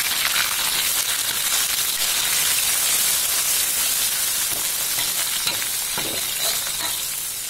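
Petai beans and dried anchovies sizzling in hot oil in a wok with shallots and chilies, stirred and turned with a spatula. The sizzle is steady and eases off near the end.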